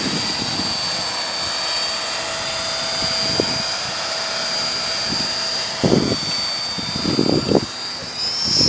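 Electric Belt-CP radio-controlled helicopter in flight, its motor and rotor giving a steady high whine. Irregular gusts of wind buffet the microphone from about six seconds in.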